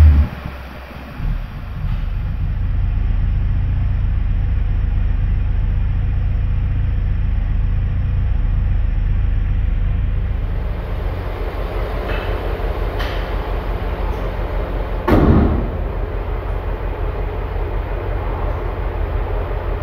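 BMW X6 M's twin-turbo V8 idling steadily at a rumble, with the fresh oil and filter just put in. A sharp knock cuts in once, about fifteen seconds in.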